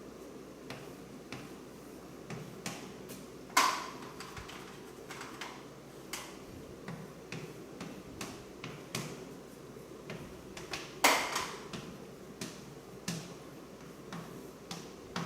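Irregular light taps and clicks, as of handling objects on a desk or board, with two louder knocks about four and eleven seconds in.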